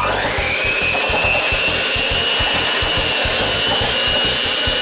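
Electric mixer whipping egg whites toward soft peaks: the motor spins up with a rising whine at the start, then runs at a steady high whine with the whisks churning.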